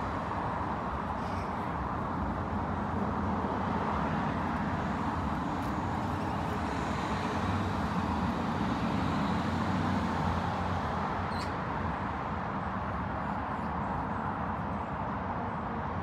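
Steady hum of distant road traffic, swelling a little in the middle.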